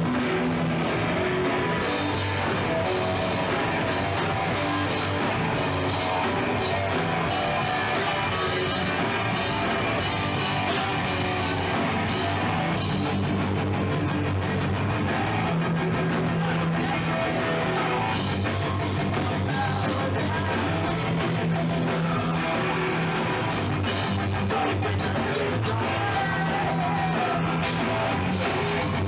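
Rock band playing a song live, with guitar and singing.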